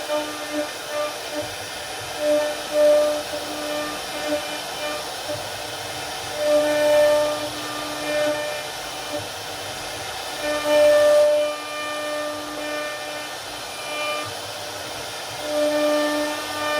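CNC router spindle running and carving wood, a steady pitched whine over a hiss that swells and fades every second or two as the bit moves through the cut.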